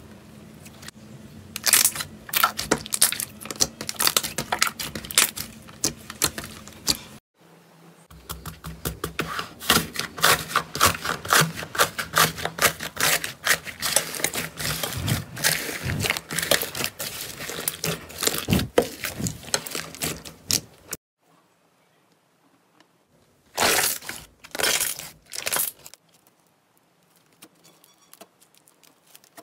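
Slime being squeezed, poked and stretched by hand, giving rapid crackling clicks and pops. The crackling comes in clips that change suddenly twice, and near the end there are only three short crackly bursts.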